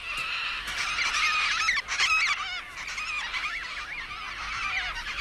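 Several Major Mitchell's cockatoos calling, with overlapping, wavering screeches that run on without a break and are loudest about two seconds in.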